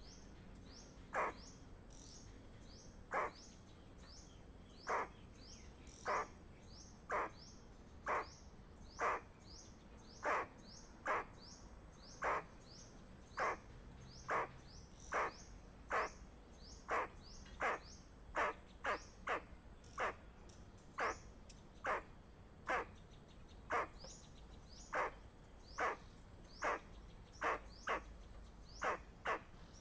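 Squirrel alarm call: short, sharp chirps repeated steadily, coming faster as it goes on until there are about two a second near the end.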